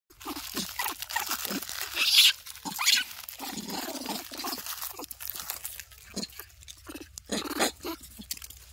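Foil snack packet crinkling and crunching as young rhesus macaques grab and pull at it, loudest about two and three seconds in. Short low grunts from the monkeys come throughout.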